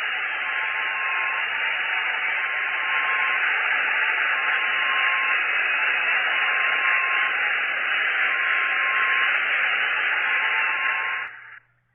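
Planetary 'sound' recording, spacecraft radio emissions turned into audio: a steady, loud static hiss like a detuned radio, with a faint tone near the middle of the hiss coming and going in a regular pattern and a low hum beneath. It cuts off shortly before the end.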